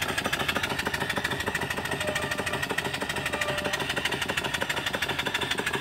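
Small single-cylinder model steam engine, 2-inch bore by 2.5-inch stroke, with a flyball governor, running steadily on steam from a small boiler. It makes a quick, even beat of exhaust chuffs that holds the same pace throughout, the governor keeping its speed constant.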